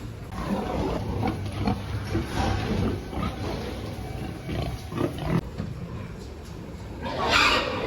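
Pigs grunting in short, scattered calls, with one louder, longer pig cry near the end.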